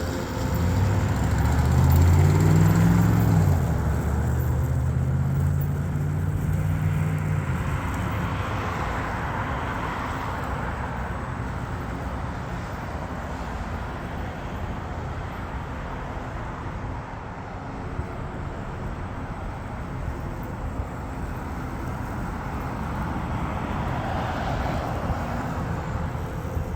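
Road traffic passing close by: a vehicle's engine pulling away in the first few seconds, its pitch rising and then holding, followed by the rush of cars going past.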